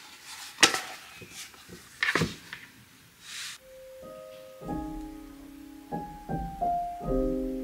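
A few sharp clicks and taps of objects being handled, the loudest less than a second in, and a brief swish about three seconds in; then soft piano music starts, with notes held and overlapping.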